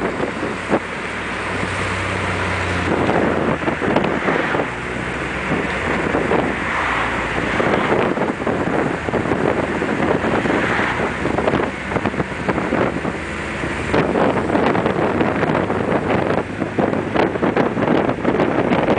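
Heavy wind buffeting on the microphone of an open-cockpit car on the move, with the car's engine running low underneath.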